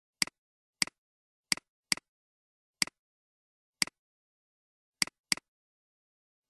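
Computer mouse clicks: about eight short, sharp clicks at uneven intervals, two of them in a quick pair, with silence in between.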